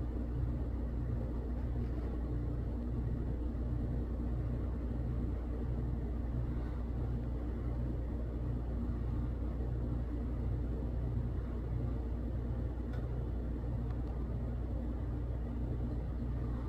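A steady low mechanical hum, like a motor or engine running, with a faint even pulsing in it.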